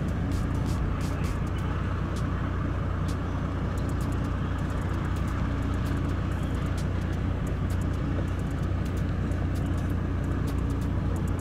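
Steady low hum of an idling engine, even and unbroken, with scattered faint clicks on top.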